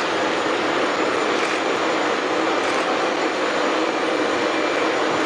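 Steady, loud aircraft engine noise, a constant rush of engine sound without breaks, as from a military transport plane's engines running on the apron.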